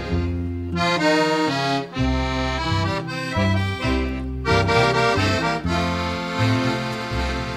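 Accordion playing an instrumental passage of a havanera between sung verses: a melody of short, separate notes over changing bass notes.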